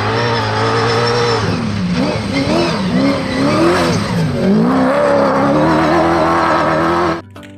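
Car engine revving, louder than the narration: a steady running note, then revs rising and falling several times through the middle. It cuts off suddenly near the end.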